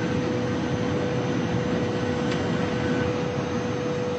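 The TGV V150 high-speed train running flat out at about 540 km/h, heard from on board as a steady roar with a steady hum running through it.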